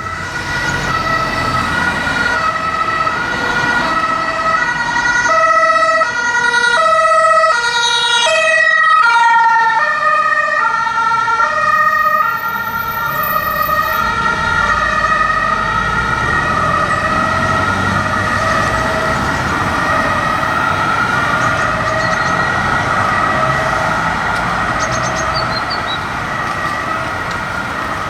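German two-tone emergency-vehicle sirens (Martinshorn) alternating between two pitches, more than one sounding at once, with the pitch dropping as a vehicle passes about 9 seconds in. Engine and road noise run beneath.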